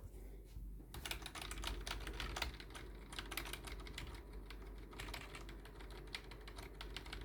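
Computer keyboard keys tapped rapidly and repeatedly while the PC boots, starting about a second in, over a steady low hum.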